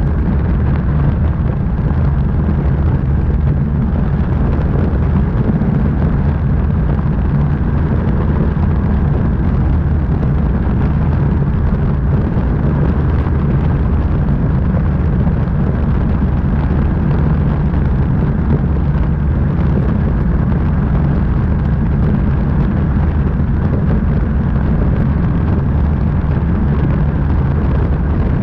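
Light aircraft's piston engine droning steadily in cruise, heavily mixed with wind rushing over the microphone of a camera mounted under the wing.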